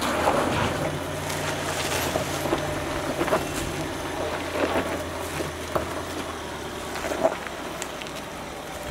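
Range Rover L322's 3.6-litre TDV8 diesel engine pulling the car slowly up sandstone rock ledges, with scattered crunches and clicks from the tyres on rock and grit. The engine hum is strongest for the first few seconds and then eases off.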